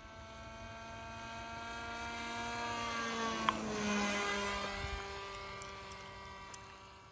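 Electric motor and pusher propeller of a homemade V-tail FPV plane flying past: a steady whine that swells as it approaches, drops in pitch as it passes about three to four seconds in, then fades away. A single sharp tick sounds just before the peak.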